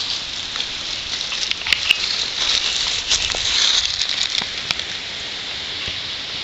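Rustling and crackling of dry fallen leaves with camera handling noise while the camera is carried and set down. A steady hiss with scattered small clicks, loudest in the middle.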